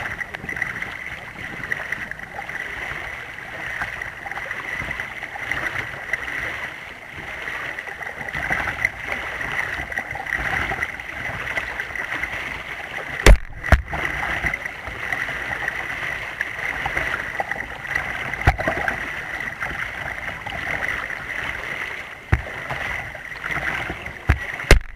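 Water rushing and splashing at the bow of a kayak under way, heard close at the waterline, with a few sharp knocks, two close together about halfway through.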